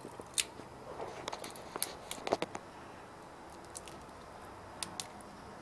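Scattered light clicks and taps of a precision screwdriver and fingers working a small metal bracket off a laptop graphics card: a quick run of clicks in the first half, then two more near the end.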